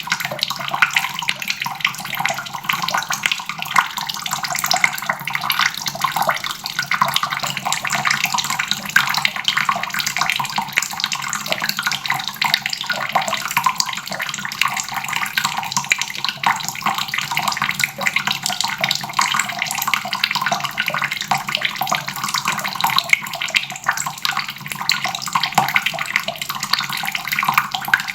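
Water tap running steadily, the stream splashing into a basin in a continuous, even rush.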